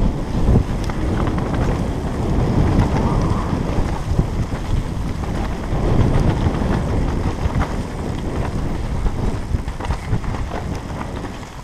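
Wind buffeting a helmet camera's microphone as a mountain bike runs fast down a rough dirt trail, with a steady rumble and small rattles and knocks from the bike and tyres over the bumpy ground.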